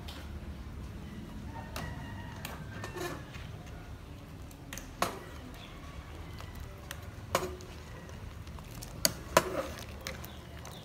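Metal ladle stirring a stew in an aluminium pot, knocking against the pot's rim and sides in a handful of sharp clinks a second or more apart, over a low steady background.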